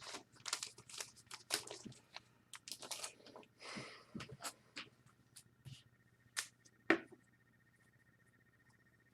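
Faint tabletop handling noises: scattered small clicks, taps and rustles, with one sharper knock about seven seconds in. A faint steady tone starts partway through.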